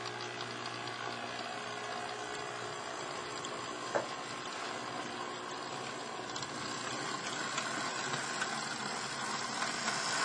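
Model trams running on the layout's track: a steady rolling rumble of wheels and small electric motors, with a faint hum during the first few seconds and a single sharp click about four seconds in.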